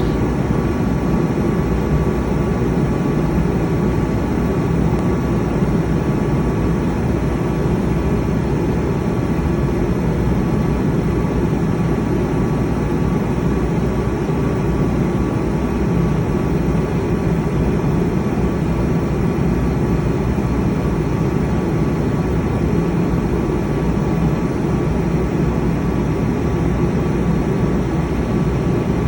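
A 100 kW Multiquip diesel generator running steadily under a forced exhaust-filter regeneration, a constant heavy drone with a faint steady whine above it. The forced regen is needed because the generator is regularly run under-loaded.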